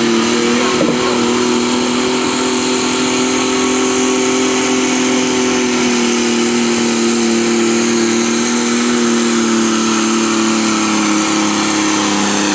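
Turbocharged diesel engine of a pro stock Cub Cadet pulling garden tractor running hard and steady under load during a pull, its note sagging slightly near the end.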